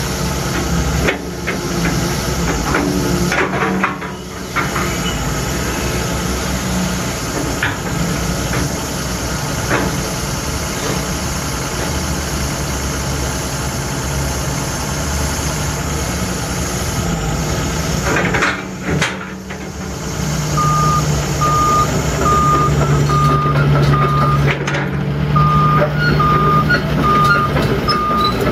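Terex TXC225LC excavator's diesel engine running under hydraulic work, with scattered knocks. About twenty seconds in, the engine note deepens and a motion alarm starts beeping, about one and a half beeps a second, with a short break partway.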